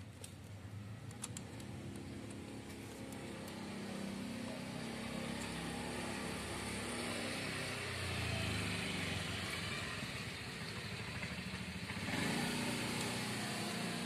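A motor vehicle engine running and revving in the background, its pitch rising and falling, louder about eight seconds in and again near the end. A few light clicks in the first second or so.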